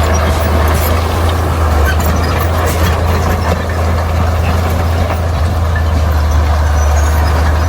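Bulldozer's diesel engine running steadily, a deep even drone, with a few faint clicks over it.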